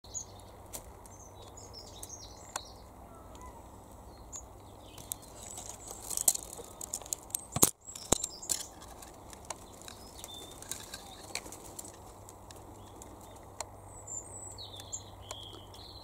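Birds chirping and calling, in short phrases near the start and again near the end, over faint outdoor background noise. Scattered light clicks and rustling run through it, busiest just before the middle, where one sharp click comes with a brief dropout in the sound.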